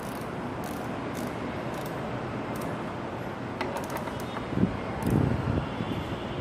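Faint scattered clicks of a ratchet torque wrench tightening small engine cover bolts, over a steady background hiss, with a louder dull thump and low rumble about four and a half to five and a half seconds in.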